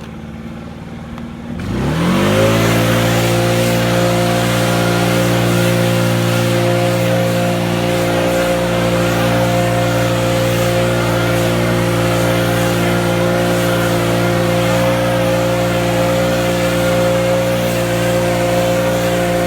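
Stihl BR 800 Magnum backpack leaf blower's two-stroke engine revving up quickly about two seconds in, then running steadily at full throttle.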